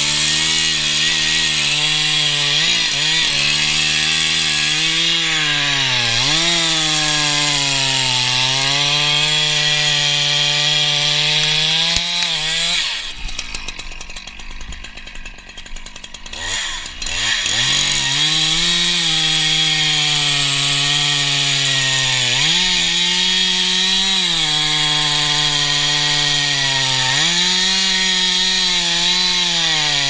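Petrol chainsaw running at full throttle cutting into a tree stump, its pitch dipping each time the chain bites into the wood. About halfway through it eases off for several seconds, then revs back up and carries on cutting.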